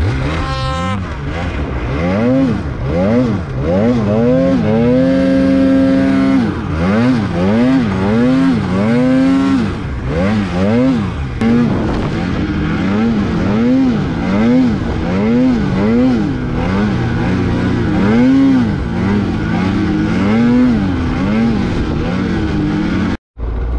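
Snowmobile engine revving up and down over and over as the rider works the throttle through deep powder, the pitch climbing and dropping about once a second with one longer held high rev. The sound cuts out briefly near the end.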